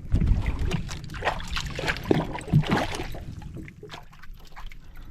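Irregular knocks, rustles and water splashes aboard a small fishing boat, busiest in the first three seconds and quieter after, over a low steady rumble.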